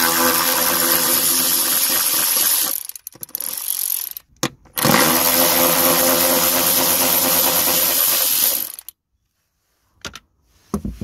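Cordless power tool driving a 10 mm socket on an extension, spinning off the two nuts that hold the fuel filter bracket. The motor runs steadily in two long stretches of about four seconds each, with a short burst between them, then stops. A few small clicks follow near the end.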